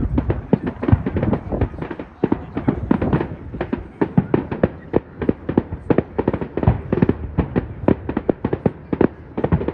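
Fireworks display going off in a rapid, continuous barrage: several sharp bangs and pops a second, overlapping with no pause.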